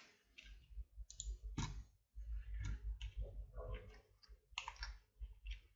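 Irregular clicks of a computer mouse, roughly a dozen over a few seconds, quiet over a faint low hum.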